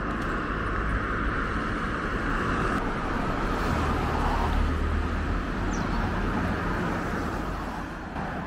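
A car driving, with steady road and engine noise and a low rumble.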